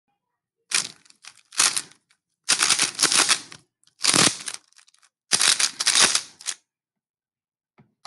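Plastic Rubik's cube being turned quickly by hand, its layers clacking in about six bursts of rapid turns with short pauses between.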